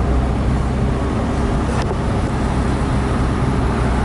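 Steady road and engine noise heard inside a moving car's cabin, with a strong deep rumble. A faint click comes about two seconds in.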